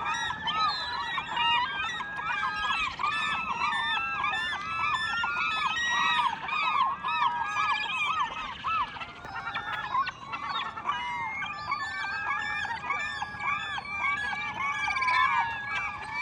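A large flock of birds calling all at once, many short arched calls overlapping without a break.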